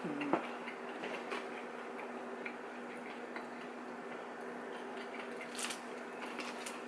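Quiet eating sounds: sparse soft clicks and ticks from chewing dumplings and utensils, with a couple of sharper ticks near the end, over a steady low hum.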